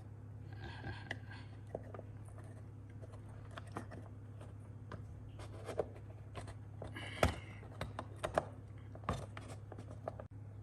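Scattered light clicks and knocks of a plastic fridge-freezer handle and its parts being handled and pushed into place, the sharpest knock about seven seconds in, over a steady low hum.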